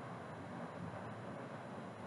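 Steady low background hiss and rumble with no distinct events.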